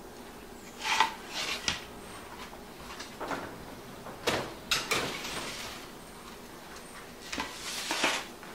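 Sheet pans sliding onto the metal oven racks and the oven door being handled: a handful of short knocks and scrapes spread through, with a brief hiss after one of them.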